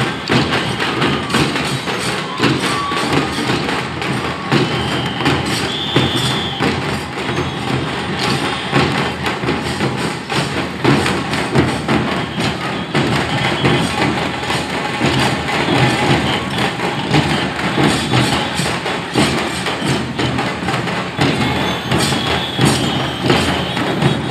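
Procession drums and percussion: dense, steady thudding and clattering strikes with music, loud throughout. Short high held tones sound briefly about five seconds in and again near the end.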